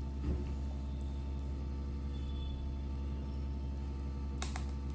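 Steady low background hum with a faint steady higher tone, and two short faint clicks near the end.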